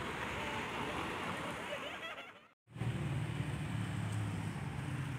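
Road traffic: cars driving past, with engine and tyre noise. About halfway through the sound cuts out briefly, then resumes as a steadier, deeper engine hum from passing traffic.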